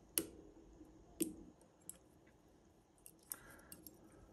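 Faint, sparse clicks of a Lishi pick working the pins inside a Yale Y121/50 lock, about half a dozen sharp ticks spread over a few seconds.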